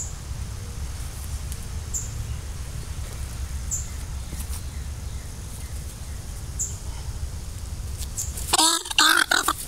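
Loud, harsh peafowl calls break out about a second before the end, over a steady low rumble and faint high chirps every couple of seconds.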